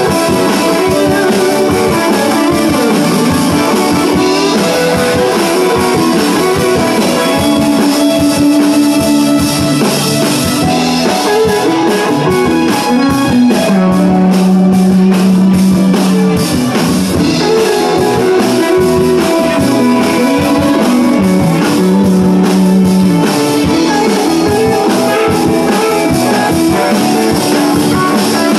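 Live band playing electric guitars over bass guitar and drum kit, with held guitar notes in the middle and toward the end.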